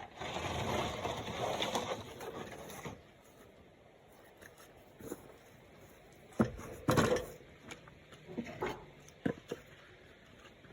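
Miter saw cutting through a slab of wood for about three seconds, followed by a few sharp knocks and clatters of wood pieces being handled.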